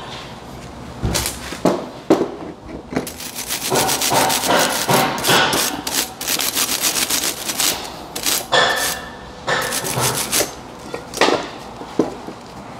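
Hand wire brush scrubbing a rear brake caliper bracket clean: quick back-and-forth strokes of metal bristles rasping on the bracket, in runs with short pauses.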